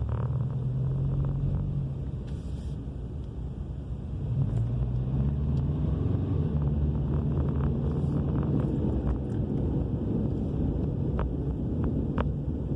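Low roaring drone from the rear of a 2000 Subaru Legacy AWD, heard inside the cabin while driving, growing louder and rising slightly in pitch as the car picks up speed about four seconds in. This is the owner's unexplained rear-end roar, which persists even though the wheel bearing, brakes, calipers and rotors are all new.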